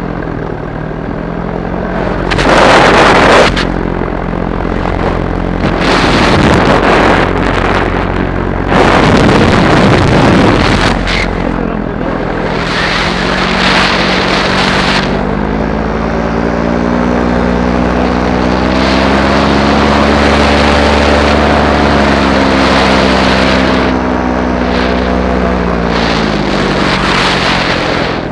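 Paramotor engine and propeller running. Its pitch rises and then eases back down in the second half as the throttle changes. Three loud gusts of wind hit the microphone in the first ten seconds or so.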